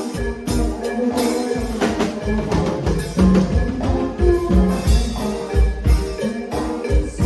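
Cumbia music with a steady beat: bass notes and percussion under held melody notes.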